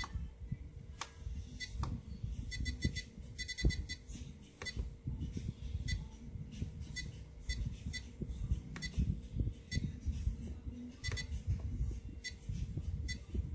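Short electronic beeps from a Radiolink AT9 radio-control transmitter as its keys are pressed while a channel reverse is being set, some in quick runs of several. Soft handling thumps and rustle run underneath.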